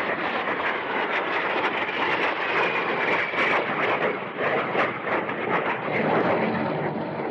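Radio-drama sound effect of a fighter plane in flight: a steady rushing engine roar, with a faint whine that falls slightly in pitch over the first few seconds.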